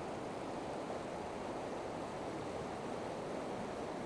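River current rushing over rocks: a steady, even rush of flowing water.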